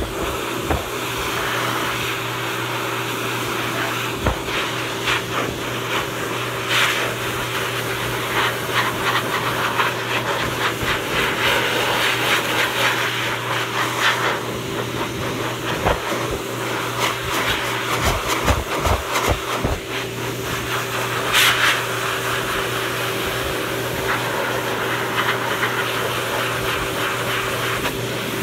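Pet blow dryer blowing air over a wet dog's coat: a steady hiss of air over a constant motor hum, with a few soft knocks.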